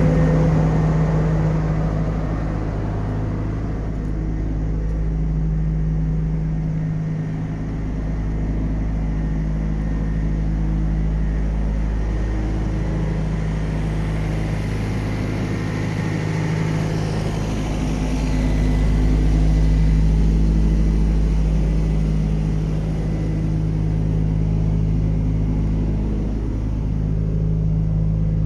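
An engine running steadily at a constant speed, a low even hum with a rumble underneath that slowly swells and eases without any change in pitch.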